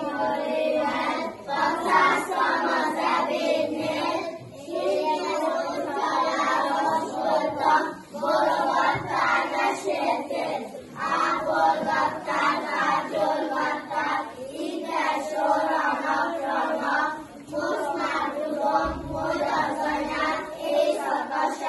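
A group of young children singing a song together in chorus, in phrases of a second or two with short breaks between.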